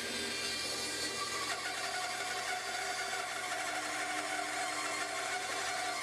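Bandsaw, its upper blade guide removed, running and sawing through a 7.5-inch locust log fed on a milling sled: a steady mechanical running sound, with a new steady tone coming in about a second and a half in.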